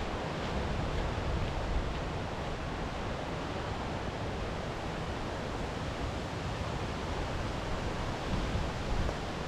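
Steady rushing noise of sea surf and wind, with a low wind rumble on the microphone.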